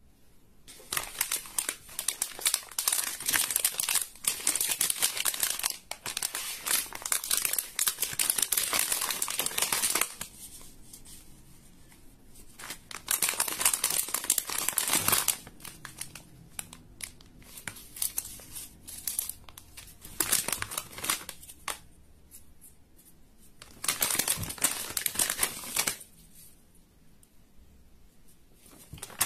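Slime squeezed and stretched by hand, crackling and popping in several stretches of a few seconds each, with quieter pauses between.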